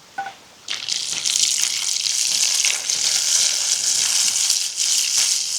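Food frying in a hot pan over a campfire: a steady loud sizzle that starts suddenly about a second in, after a light clink.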